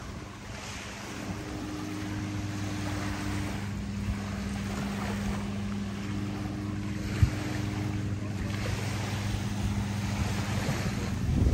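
Boat engine running at a steady low hum, with wind and surf in the background. A single sharp knock about seven seconds in.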